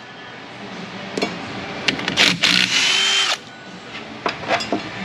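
Cordless electric ratchet running hard for about a second and a half, a little after two seconds in, with a motor whine, spinning a brake caliper bolt loose. A few light metal clicks follow near the end.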